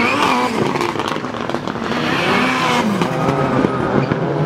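Autocross race car's engine revving hard as the car races past, its pitch climbing and dropping several times.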